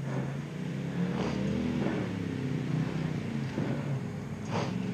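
Engines of ATVs driving up a sandy wash, running steadily with the pitch rising and easing off, with a few short knocks scattered through.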